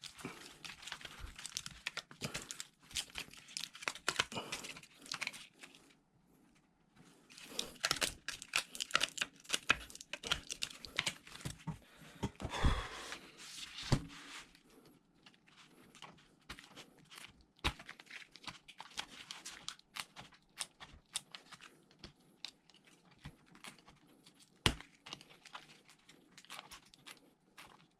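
Crinkling and tearing from hand work on a laptop battery replacement, in two long stretches, then scattered small clicks and taps with a couple of sharper knocks.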